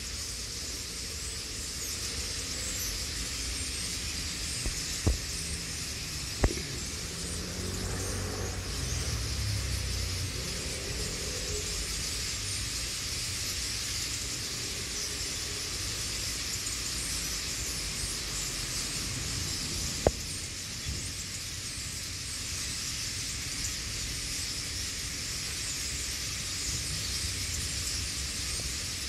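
A large flock of starlings chattering at a roost tree: a dense, steady hiss of many small calls at once. Three sharp clicks stand out, two about five to six seconds in and one about twenty seconds in, with a low rumble underneath around a third of the way through.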